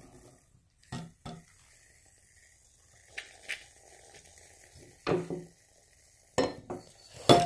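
Shaving cream hissing faintly out of an aerosol can into a bowl, with a few sharp knocks and clinks against the bowl.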